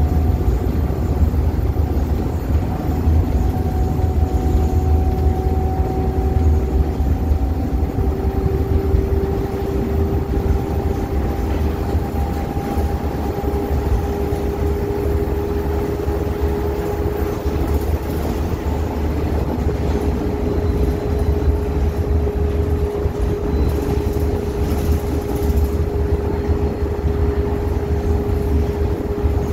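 ADL Enviro 200 bus under way: a steady low engine rumble with a drivetrain whine that rises slowly in pitch for the first dozen seconds, then holds steady.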